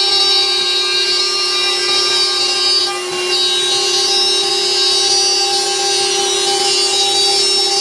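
CNC router spindle running with a steady high whine as its small end mill cuts a groove around a wooden cutting board, with a brief dip in the sound about three seconds in.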